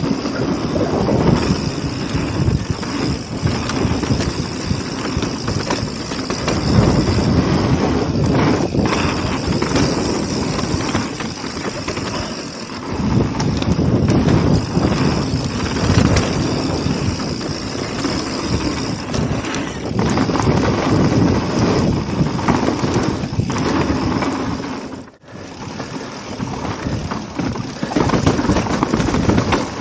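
Mountain bike riding fast down a dirt trail: tyres rolling and skidding over dirt and rocks, the bike rattling over bumps, and wind rushing over the camera's microphone. The noise dips briefly near the end.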